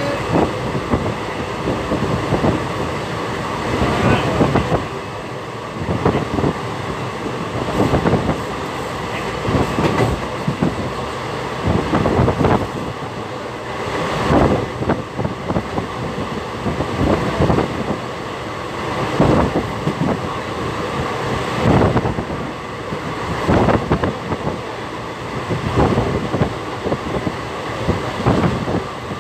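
Train carriage running along the track, heard at an open window: a steady rumble of wheels on rail, with repeated clattering knocks as the wheels pass over rail joints every second or two.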